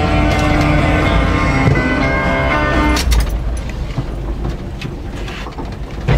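Music plays for about three seconds, then cuts off, leaving the low, steady drone of the Dodge Power Ram's 318 V8 and road noise inside the moving cab, with a few clicks and a thump at the end.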